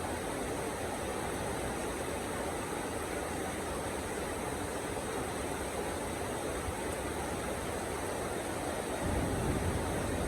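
Heavy rain falling in a steady hiss. About nine seconds in, a low rumble starts and grows louder.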